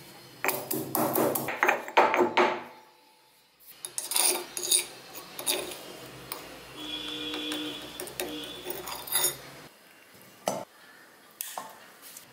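Stone pestle pounding and grinding coriander seeds and black peppercorns in a stone mortar: a run of knocks and gritty crunches. Further on, a metal spoon scrapes the crushed spice out against the stone.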